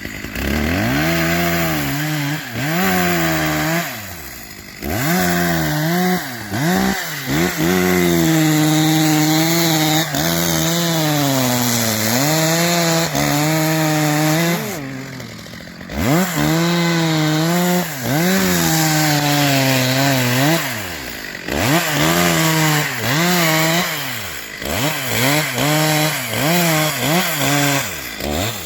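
An engine revved hard in long surges, its pitch sweeping up and down, dropping off briefly a few times before picking up again.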